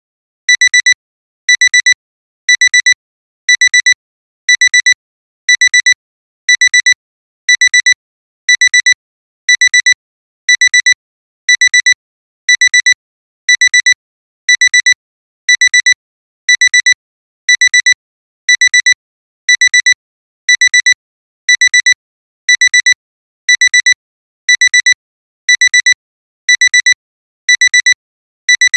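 Electronic alarm-clock alarm beeping: short, high-pitched double beeps repeating about once a second in an even, unchanging rhythm.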